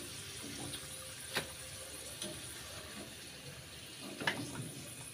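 French fries deep-frying in hot oil, a steady bubbling hiss, with a perforated metal skimmer clinking against the pan twice as the fries are lifted and turned.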